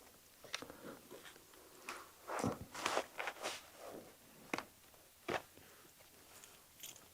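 Quiet handling sounds: scattered rustles, scrapes and small clicks of plastic, strap and foam as snowmobile goggles and a helmet are handled.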